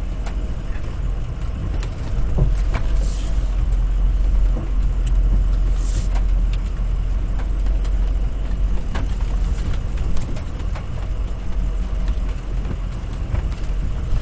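Full-size pickup truck engine running at low speed as the truck crawls along a rough off-road trail, a steady low rumble with a few scattered knocks and clunks.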